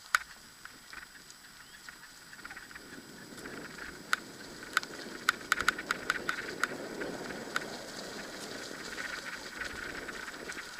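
Dog-pulled kick scooter rolling along a trail. Its rolling noise grows louder from about three seconds in, with scattered sharp clicks and rattles throughout.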